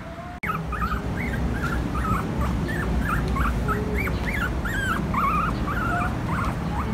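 Young Pomeranian puppy whimpering: a quick run of short, high-pitched cries that rise and fall, two or three a second, starting just after a brief gap near the start.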